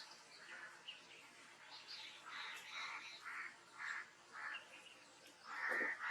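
Birds calling faintly: a run of short, repeated calls about two a second, louder near the end.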